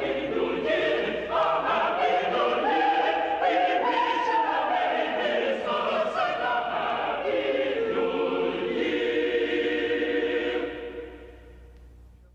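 Choral music with voices singing held notes, fading out near the end.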